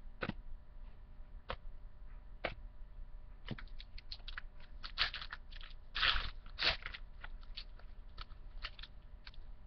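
A trading-card pack wrapper crinkling and cards being handled. It comes as a run of short crackles and clicks, scattered at first, thickest about midway, then thinning out.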